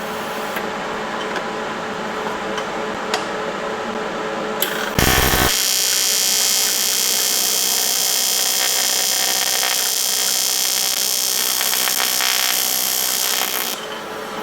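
TIG welding arc striking with a crackle about five seconds in, then a steady loud buzzing hiss for about nine seconds before it cuts off sharply near the end: the blow-off valve flange being tacked onto the turbo charge pipe.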